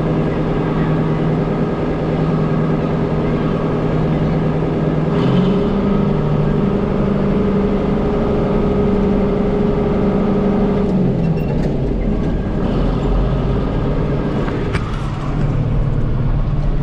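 Farm tractor engine running, heard from inside the cab as the tractor is driven. The engine speeds up about five seconds in, holds, then drops back to a lower speed about eleven seconds in.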